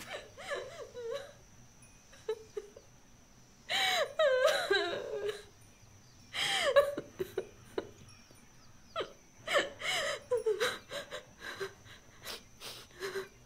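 High, wavering whimpering cries in a few short bouts, each rising and falling in pitch, with small clicks and rustles between them.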